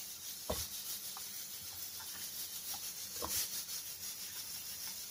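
Cut raw plantain pieces dropped into an open aluminium pressure cooker of vegetables: a few soft knocks and rustles, the loudest about three seconds in, over a steady hiss.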